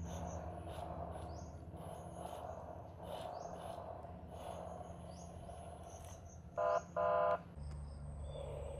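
Birds chirping and insects over a steady low hum, broken about two-thirds of the way in by two short, loud pitched tones in quick succession, the second a little longer.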